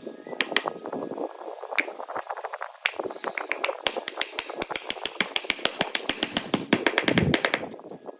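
Sharp tapping on wood, scattered at first, then a fast, even run of about six taps a second from about three seconds in, stopping shortly before the end.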